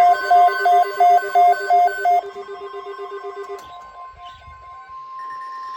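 Electronic emergency alert tones. First comes a rapid beeping alert pattern, about three beeps a second, that drops away after about two seconds. Then a steady single-pitch weather radio alert tone swells up about five seconds in, with a faster chopped higher tone alongside it.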